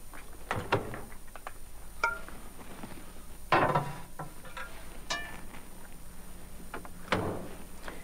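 Microwave oven door being opened and shut, with a glass bowl clinking as it is set inside. There are a few sharp knocks, two ringing glass clinks, and a heavier thunk of the door closing near the end.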